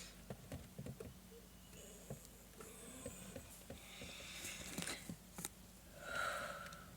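Faint breathing and a few small handling clicks in a quiet room, with a louder breath about six seconds in.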